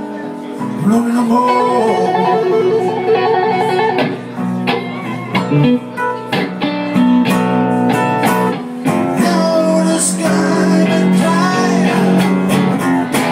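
Live blues guitar playing: an electric guitar takes the lead with wavering held notes over acoustic guitar accompaniment.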